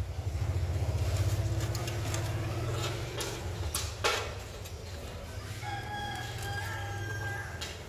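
A steady low rumble, with a sharp knock about four seconds in, then a rooster crowing in one long call near the end.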